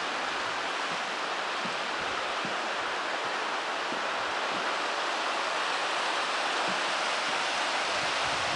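Steady rush of a fast-flowing creek running over rocks.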